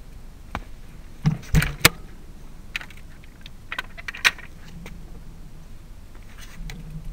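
Irregular clicks and rattles from a bicycle and its mounted video camera jolting over the road, with a cluster of sharper knocks about one and a half seconds in and a few more around three to four seconds, over a low steady rumble.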